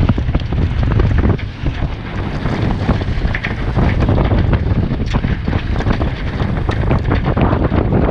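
Strong wind buffeting the microphone of a camera aboard a racing sailboat: a constant low rumble broken by many short crackles.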